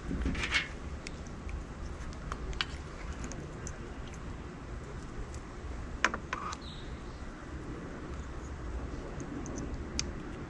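Small plastic e-bike wiring connectors and cables being handled and fitted together: scattered light clicks and rattles, with one sharp click about six seconds in, over a steady outdoor background.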